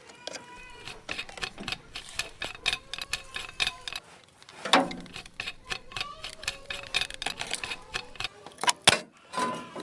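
Light, irregular clicking and tapping, several clicks a second, with a louder knock about halfway and a couple more near the end.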